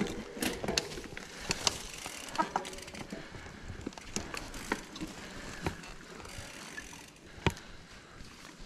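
Mountain bike rolling over rough singletrack, rattling, with irregular sharp clicks and knocks every second or so.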